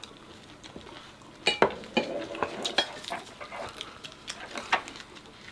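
Tableware at a meal: scattered light clinks and knocks of utensils against dishes and bowls, with the sharpest clinks between about one and a half and three seconds in.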